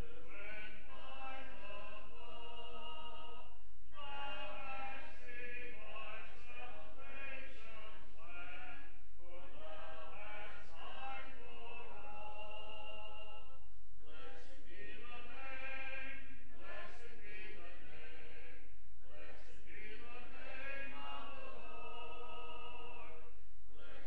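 Congregation singing a hymn unaccompanied, phrases breaking for a short breath every four to five seconds.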